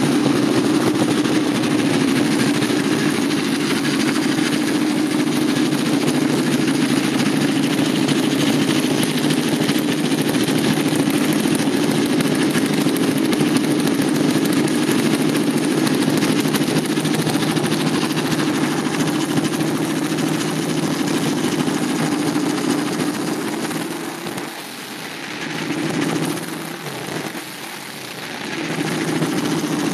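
Yamaha WR400F's four-stroke single-cylinder engine idling steadily just after a cold start, dipping twice briefly near the end before picking up again. It is running with the petrol tap off, on the fuel left in the carburettor.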